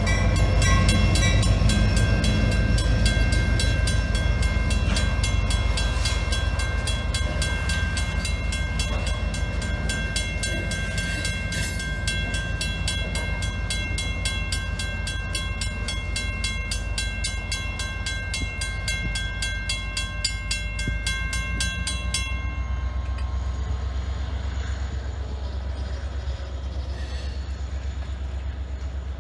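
Norfolk Southern freight train rolling through a level crossing with a low, steady rumble, while the crossing's warning bell rings in fast, even strokes. The bell stops abruptly about 22 seconds in as the train clears, and the rumble fades as the train moves away.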